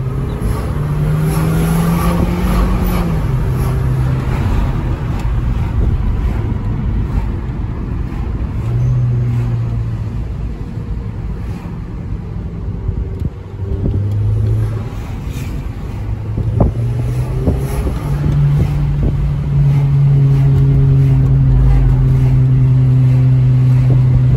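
Volkswagen Passat Variant's turbocharged engine heard from inside the cabin, pulling hard under acceleration while the 09G Tiptronic automatic shifts up. The engine note climbs and drops back with each shift several times, then holds steady near the end.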